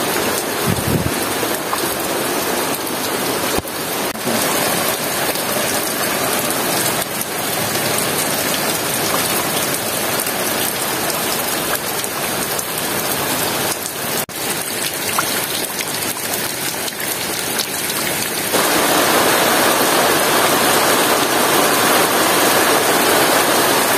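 Heavy tropical rain pouring steadily onto fish ponds and broad banana leaves. It gets noticeably louder and fuller about three-quarters of the way through.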